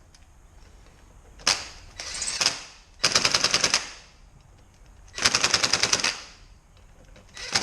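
Impact gun hammering in three short bursts of rapid, even blows, driving the Allen-head bolts that hold a wave brake rotor to the hub on a low setting. A single knock and a brief rising whir come before the first burst.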